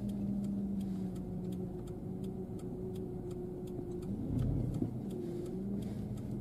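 Car engine running at low revs, heard from inside the cabin, with the turn-signal indicator ticking evenly at about three clicks a second as the car manoeuvres to turn around.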